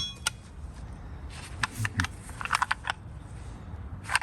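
Metal hand tools clinking and knocking together as they are handled and sorted in a bin: a scattering of light clicks, with a quick flurry about two and a half seconds in.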